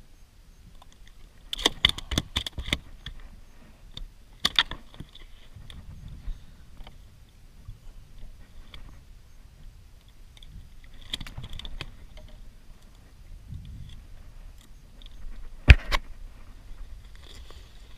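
Clicks and rattles in a few short clusters from a metal fish lip-grip and tackle being handled on a plastic kayak deck, with a single sharp knock, the loudest sound, near the end.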